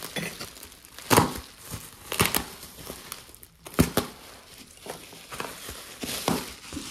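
Plastic bubble wrap crinkling and rustling as it is handled and pulled open, with several sharper crackles.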